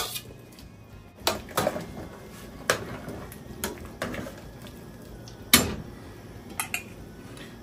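Pots and utensils clinking and knocking now and then as vegetables go into a cooking pot, with one louder knock about five and a half seconds in.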